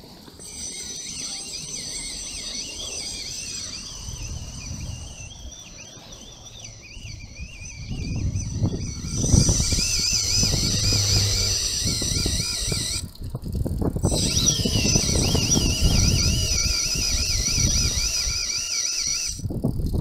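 Friction-drive motors of a DIY e-bike whining high as they spin the bicycle tire, the whine wavering in pitch. It cuts out for about a second around two-thirds of the way through, then picks up again. Low rumbling riding noise joins in for the second half and is the loudest part.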